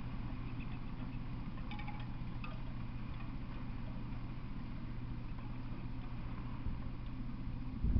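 Steady low outdoor hum with light wind noise on the microphone. A few faint high tinkling pings come about two seconds in, and a short knock right at the end.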